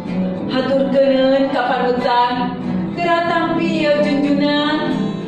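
A woman singing a slow melody in long held notes, accompanied by acoustic guitar.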